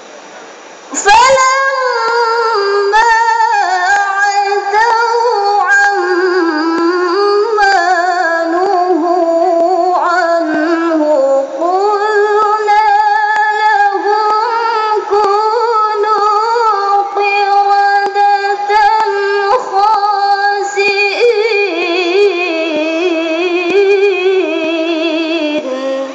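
A woman reciting the Quran in melodic tilawah style in a high voice, long ornamented phrases with wavering pitch, amplified over loudspeakers. The voice comes in about a second in, with brief breaths between phrases.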